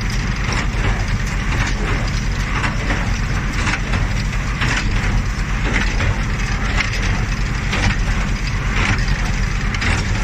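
New Holland 377 small square baler running, its plunger crunching hay into the bale chamber about once a second over the steady low drone of the tractor driving it.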